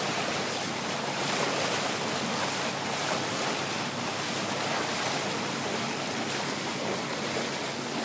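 Water rushing and splashing steadily along a moving sailboat's hull.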